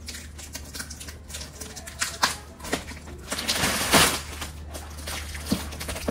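Handling of gift packaging: scattered knocks and clicks, with a louder rustling scrape about three and a half seconds in, over a steady low hum.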